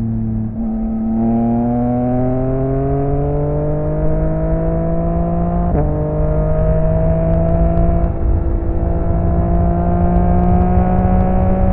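Yamaha XSR900's inline-three engine through an M4 aftermarket exhaust, pulling under acceleration. The pitch drops at an upshift about half a second in, climbs steadily, drops again at a second upshift near the middle, then keeps rising slowly.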